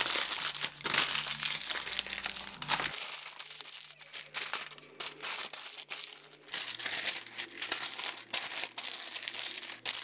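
Newspaper being crumpled and crinkled by hand as it is wrapped tightly around a sweet potato, in quick irregular rustles throughout.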